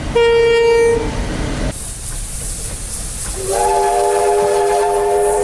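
Locomotive horns from two spliced clips. First comes a short single-note horn blast of under a second. After an abrupt cut to rumbling train noise, a multi-note chord horn starts a little past halfway and sounds steadily on.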